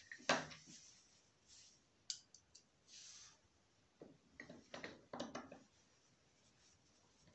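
Scattered light clicks and knocks of small objects being handled: one sharp click at the start, a few thin high clicks about two seconds in, and a cluster of short knocks from about four to five and a half seconds in.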